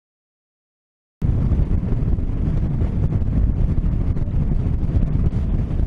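Silence, then about a second in a sudden cut to steady wind buffeting the microphone of a camera on a motorcycle riding at speed, with a deep road and engine rumble underneath.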